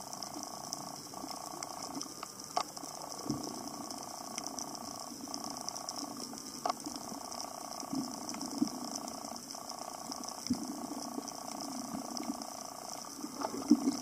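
Underwater ambience picked up by a camera in the sea: a steady droning hum with scattered sharp clicks and crackles.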